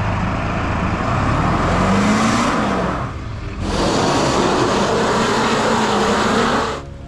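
A motor vehicle running hard, loud and noisy, with an engine note rising in pitch about two seconds in. It comes in two stretches, each cut off abruptly, with a short dip around three seconds.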